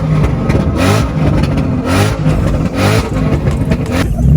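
Straight-piped Ford Mustang Shelby GT500 V8 revving loudly several times in rising pulls, about once a second.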